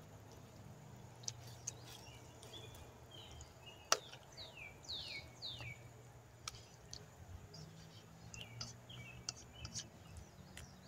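Faint bird chirping: a few quick falling chirps about halfway through, over a low steady hum. A sharp click comes about four seconds in and lighter clicks follow as a spoon stirs and knocks against the pan.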